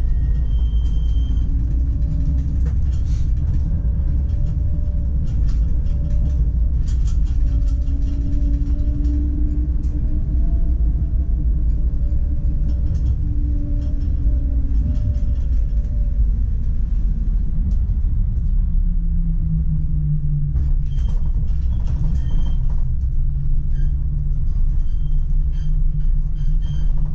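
PESA Swing 122NbT low-floor tram running, heard from the driver's cab: a steady low rumble with a humming motor tone. About two-thirds of the way through the tone drops in pitch as the tram slows, and there are scattered light clicks.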